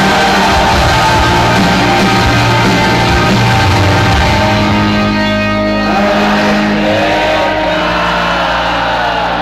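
Live rock band playing loud with electric guitar and drums. About five seconds in the full band sound drops back, and the voices of a large crowd singing along come to the fore.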